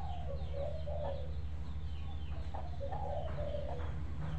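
Domestic hen clucking, a run of short irregular clucks, over a steady low hum.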